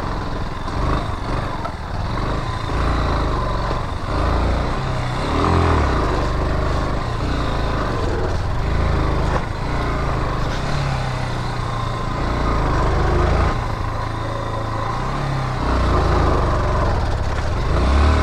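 Motorcycle engine running under load while being ridden over a rough off-road track, its note rising and falling as the throttle is worked.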